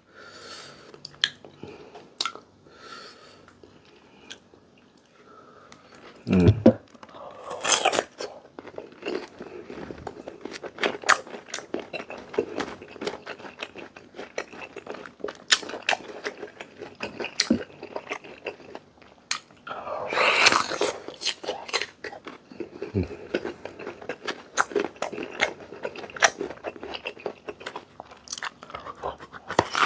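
Close-up crunchy bites and chewing of raw green mango: crisp crunching chews throughout, with louder bites about six and eight seconds in and again around twenty seconds.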